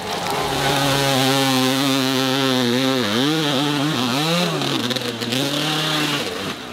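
Dirt bike engine held at high, steady revs on a steep hill climb. The revs drop and pick up again twice about halfway through, then the engine cuts out near the end as the bike crashes onto its side.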